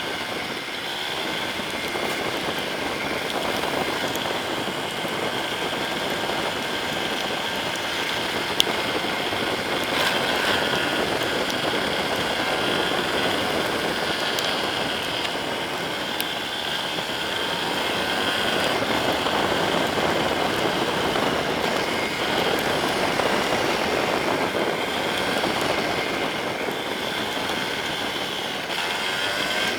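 Yamaha Serow 250's single-cylinder four-stroke engine running under way, mixed with a steady rush of wind and wet-road noise in the rain, the engine pitch rising and falling gently. A single sharp click about nine seconds in.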